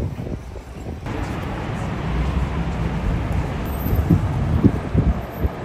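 City street traffic: steady road and tyre noise from buses and cars passing, fuller from about a second in, with a few low gusts of wind on the microphone in the second half.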